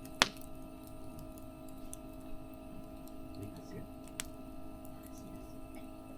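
Burning wood in a campfire popping: one sharp crack just after the start and another about four seconds in, with a few faint ticks between, over a steady hum.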